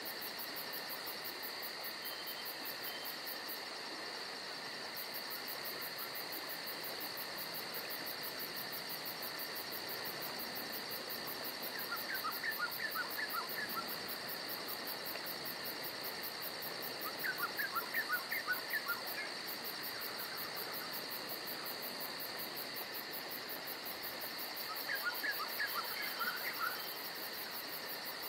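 Steady chorus of insects: continuous high buzzing tones with a fast, regular pulsing trill above them. Three short bouts of rapid chirping notes cut in, in the second half.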